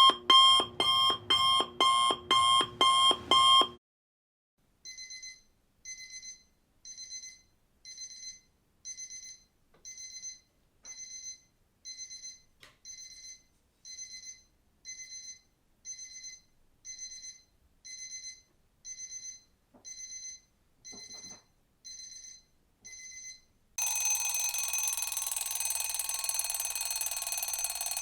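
A run of alarm clock sounds: a loud electronic alarm pulsing about twice a second stops a few seconds in. After a short gap, a quieter digital alarm clock beeps in short bursts about once a second. Near the end, a continuous loud ringing starts suddenly.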